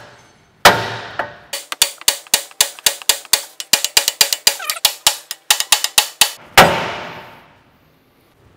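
Sledgehammer striking a RAM 1500's steering knuckle to shock the upper ball joint stud loose from its taper. A hard ringing metallic blow about half a second in is followed by a quick run of lighter strikes, about five a second, and then a final hard ringing blow near the end.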